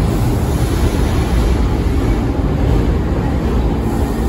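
New York City subway (A) train rolling along an underground station platform as it pulls in, a steady, loud low rumble of wheels on track.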